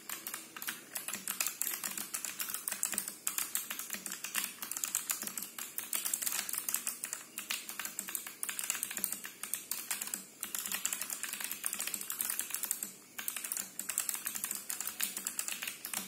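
Typing test on a 40% TG4X mechanical keyboard with an acrylic case, Kailh Box White clicky switches lubed with Krytox 105, and PBT keycaps: fast, continuous key clicks with a couple of brief pauses.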